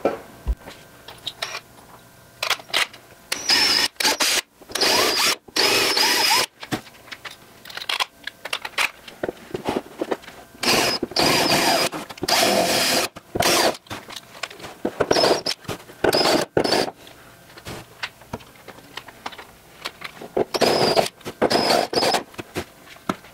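A cordless drill drilling holes through a fiberglass door panel, its trigger pulled in repeated bursts of a second or two with short pauses between, a high whine in each burst.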